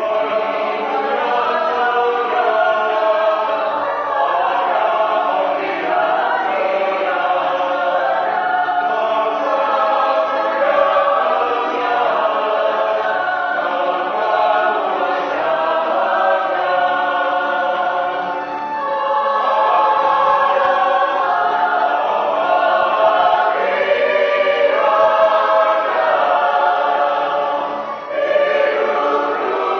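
Background music: a choir singing a song in held, sustained notes.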